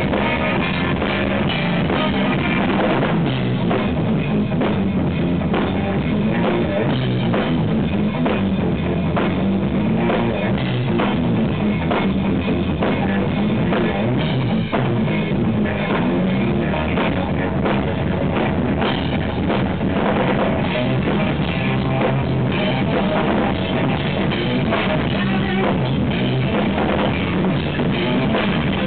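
Live instrumental rock-fusion trio playing: electric guitar, electric bass and drum kit. The sound is loud and distorted, from an overdriven camera recording.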